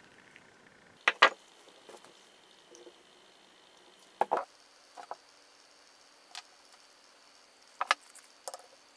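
Small metal parts of a hand drill's spindle bearing housing click and clink as they are handled, about six short sharp clicks in all. The loudest pair comes about a second in, and another close pair comes near the end.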